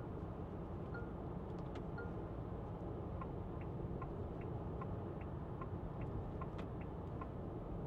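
Steady low road and cabin noise inside a 2024 Renault Grand Koleos hybrid on the move. For the first two seconds a short high beep chimes about once a second. From about three seconds in, an even tick-tock runs at roughly two and a half ticks a second, like the turn-signal indicator, until near the end.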